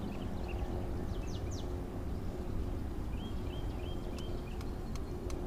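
Outdoor river ambience: a steady low rumble of wind and water, with a small bird calling faintly, a couple of quick chirps and then four short repeated notes about three seconds in.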